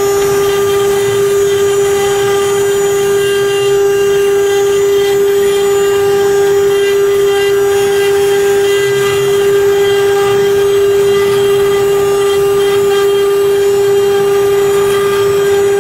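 Spindles of a multi-head CNC router running at high speed while their engraving bits carve MDF board: one steady, unchanging whine with overtones, over a rough cutting noise.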